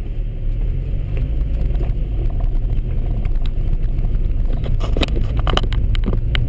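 Ford Fiesta engine and road noise heard inside the cabin as the car drives up a winding road: a steady low drone. A few sharp clicks or knocks come near the end.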